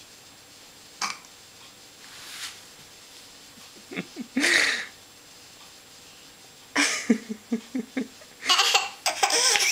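A baby's belch about four and a half seconds in, followed by bursts of laughter that grow louder near the end.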